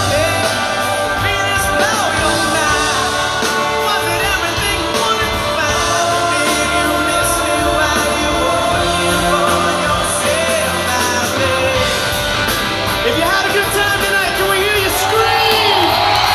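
Live rock band playing with a male lead vocalist over a big PA, heard from within the audience of a large amphitheater. Near the end the crowd's shouting and cheering swells over the music.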